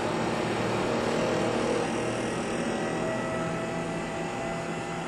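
Bentley Nevada rotor kit running, its electric drive motor and spinning shaft making a steady mechanical hum with a faint whine that rises slowly in pitch as the speed ramps up toward the rotor's natural frequency, with a calibration weight on the rotor.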